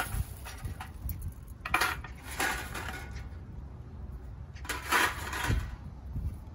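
Thin titanium wood-stove panels clinking and rattling against each other as they are handled and pulled apart, in a few short bursts with the loudest about five seconds in. Wind rumbles on the microphone underneath.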